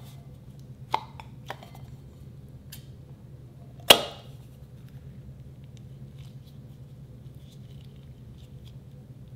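Scissors cutting into a taut, glue-filled latex balloon: one loud, sharp snap just before four seconds in, after a few lighter clicks of the balloon and scissors being handled. Faint small ticks follow as the white glue is squeezed out into a glass bowl.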